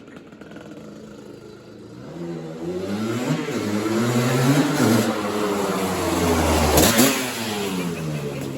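1985 Suzuki LT250R quad's two-stroke 250 cc engine through a full FMF exhaust, quiet for the first couple of seconds, then revving up and down several times, loudest about seven seconds in before the pitch drops near the end.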